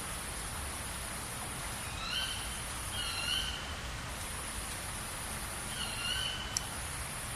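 Outdoor mountain-valley ambience: a steady rushing background with a continuous high-pitched hiss, while a bird gives three wavering whistled calls, about two, three and six seconds in. A single sharp click follows the last call.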